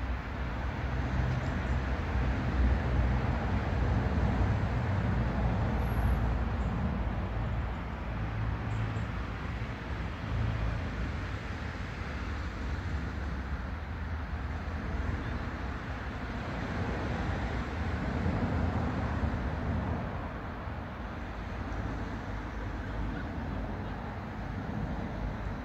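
Diesel locomotive hauling a train away into the distance: a low engine rumble that eases off over the second half, over a steady rushing background.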